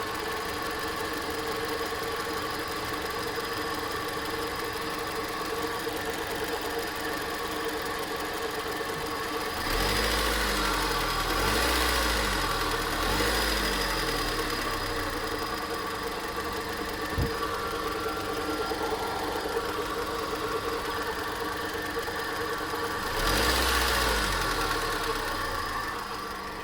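2003 Honda Civic engine idling with a weird noise, blipped up and back down three times about ten seconds in and once more near the end. A single sharp click midway.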